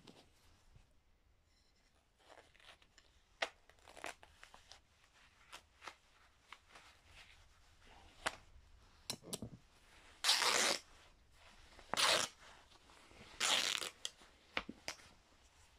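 White lab coat fabric being ripped by hand in three short tears about a second and a half apart, after several seconds of quieter rustling and handling of the cloth.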